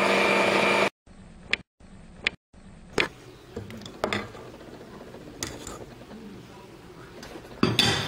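Stand mixer running steadily as its beater creams butter and sugar, cutting off abruptly about a second in. After it, a few sharp clicks and knocks from handling at the steel mixing bowl, with a louder rattling knock near the end.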